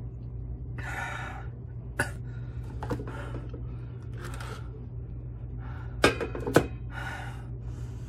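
Heavy, hissing breaths in and out through the mouth, about five times, from a man struggling with the burn of extreme-heat jerky. Sharp clicks come about two seconds in and twice about six seconds in as he opens a cardboard box and handles a plastic bag. A low steady hum runs underneath.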